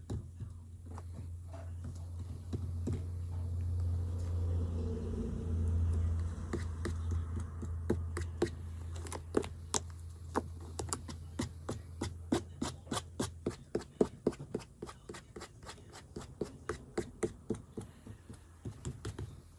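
Hands working slime, with a run of sharp clicks and pops that come thicker, a few a second, in the second half. Under the first part runs a low steady hum that stops about two-thirds of the way through.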